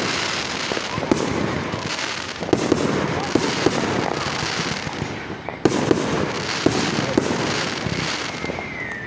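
Fireworks going off in irregular volleys. Sharp bangs come in clusters over a continuous crackling hiss.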